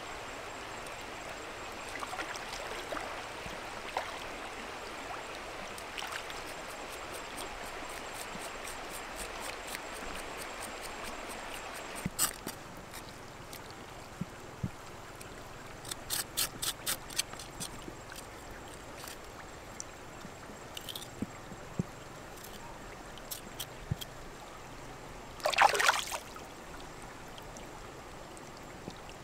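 River water flowing steadily at the bank. About halfway through it drops quieter, and a kitchen knife scraping and cutting pork skin on a wet rock gives sharp clicks and a quick run of strokes. Near the end comes one brief, louder rush of sound.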